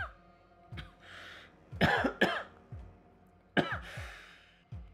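A man coughing into his fist: a small cough, then a loud pair of coughs about two seconds in and another near the end, with drawn, rasping breaths between.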